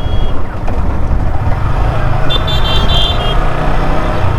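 Steady loud rumble of a vehicle travelling on a road, with a short high-pitched horn toot about halfway through.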